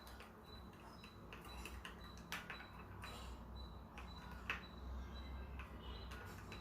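Faint, scattered light clicks and taps of a spoon and small container being handled while mixing honey into the juice, with two sharper taps, about two and a half and four and a half seconds in.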